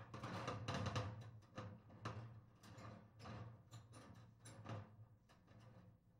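Faint, irregular knocks and clatter from a hand-turned sewer auger's coiled cable being worked in the line, over a low steady hum.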